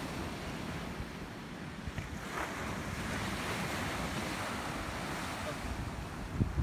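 Ocean surf washing and breaking on the shore, with wind buffeting the microphone as a steady low rumble. A few short knocks, the loudest near the end.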